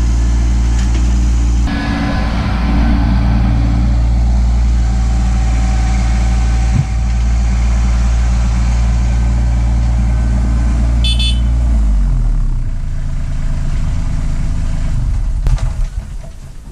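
Kubota LX2610 compact tractor's three-cylinder diesel engine running steadily at working revs while the root grapple unloads logs, with a single thud about seven seconds in. About twelve seconds in the engine drops in pitch, and near the end it dies away with a few clicks, as when it is shut off.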